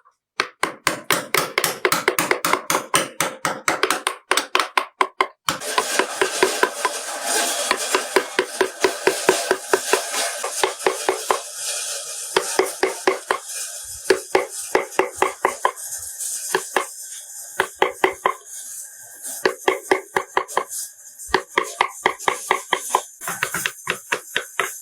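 Wooden mallet tapping a carving chisel into wood in quick, even strokes, about five a second, with a short pause a few seconds in.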